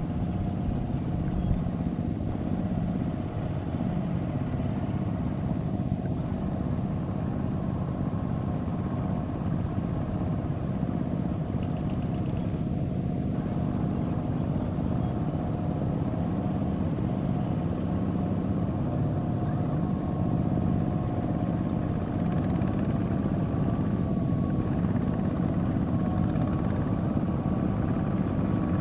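Tractor engine running steadily, with a dense low rumble and a steady hum over it, holding an even speed throughout.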